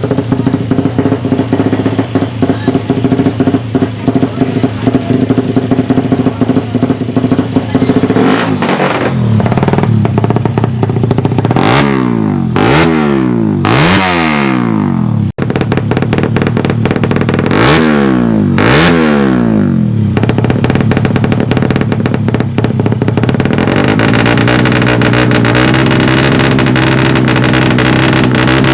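A Suzuki Satria FU 150 drag-bike's single-cylinder four-stroke engine idles roughly, is revved in a run of quick throttle blips in the middle, then runs steadily at raised revs near the end.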